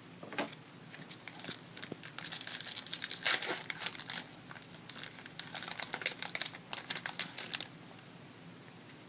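A trading-card pack's wrapper being torn open and crinkled by hand: a few scattered crackles, then a dense run of crinkling that stops about a second before the end.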